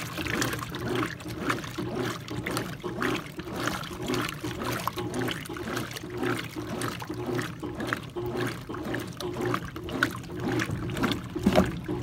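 Brastemp Clean BWC 11 top-loading washing machine agitating a tub of water with no clothes in it, running on water only to flush out residue from its reassembly after a mechanical overhaul. The water sloshes and churns in a steady rhythm over a constant low hum.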